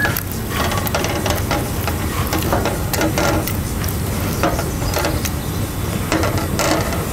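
Spatula and spoon stirring thick risotto in a stainless steel saucepan, scraping and clicking against the pan in an uneven rhythm, over a steady low rumble.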